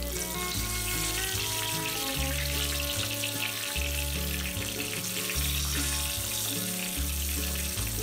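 Floured chicken drumsticks sizzling and crackling in shallow hot oil as more pieces are laid into the pan, under background music with steady bass notes.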